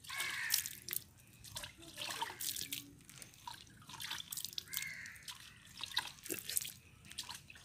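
A hand moving and scooping water in a plastic basin, with irregular drips and small splashes.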